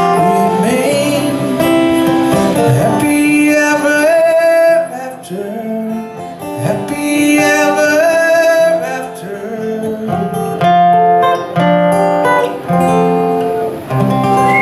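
Acoustic guitar strummed with a man singing over it, live: the closing bars of a folk-country song, the last chords ringing out near the end.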